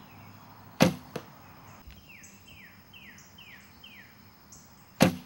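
Two shots from a traditional recurve bow: each a sharp slap of the string at release, then the arrow striking the target about a third of a second later. Between the shots a bird calls in a run of short falling chirps.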